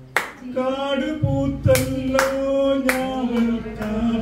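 A man singing into a handheld microphone, amplified through a loudspeaker, holding long, steady notes. A few hand claps come in along with the singing.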